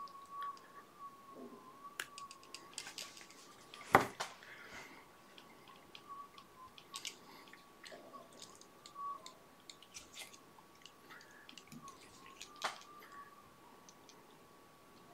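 Small clicks and rustles of fly-tying tools and thread being handled at a vise, with one sharp click about four seconds in and another later on, over a faint steady high whine.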